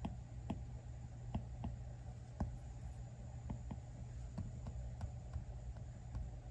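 Apple Pencil tip tapping on an iPad Pro's glass screen during sketching: light, irregular clicks, about two a second, over a low steady hum.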